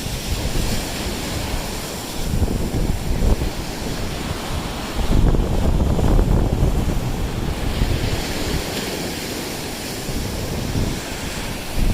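Lake waves washing up onto a sand beach, with wind buffeting the microphone in a low rumble that is heaviest about five to seven seconds in.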